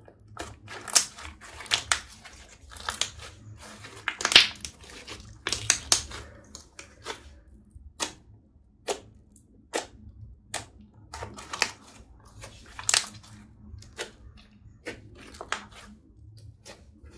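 Hands kneading and pressing glossy green glitter slime, giving sticky crackles and sharp pops as air pockets in the slime burst. The pops come in quick clusters for the first few seconds, then singly about a second apart.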